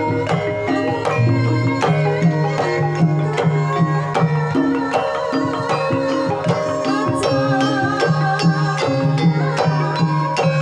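Javanese gamelan music: bronze metallophones ringing sustained pitches over a steady beat of kendang drum strokes.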